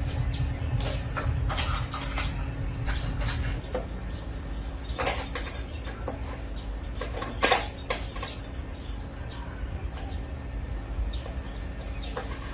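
Scattered clicks and knocks of metal parts being handled during a rice cooker repair, two of them louder about five and seven and a half seconds in, over a steady low hum.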